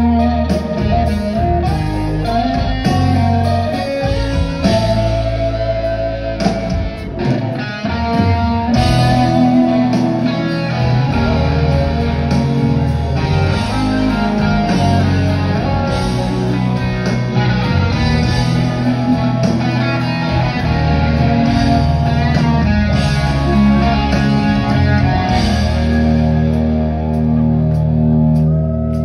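Live rock music: a sunburst Les Paul-style electric guitar playing an instrumental passage over the band's drums and bass.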